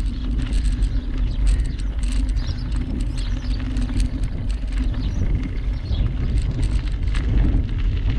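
Bicycle rolling along a canal towpath: a steady tyre rumble with frequent small clicks and rattles.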